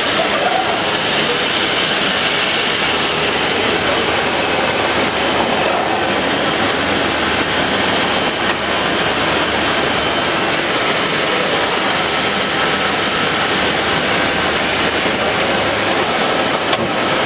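Steady mechanical running noise of a PTP 260 CNC woodworking drilling machine at work, mixed with the din of a busy machinery hall. Two short, sharp hisses come about eight seconds apart.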